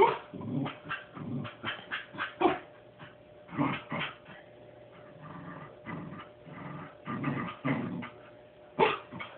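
Puppy vocalizing in a run of short sounds broken by several sharp yips, 'asking' for a stuffed toy that is out of his reach.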